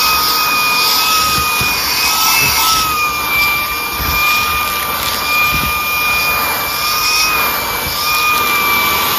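Hart 20V brushless cordless stick vacuum running with its narrow crevice nozzle, sucking crumbs out of a couch seat: a steady high motor whine over rushing air.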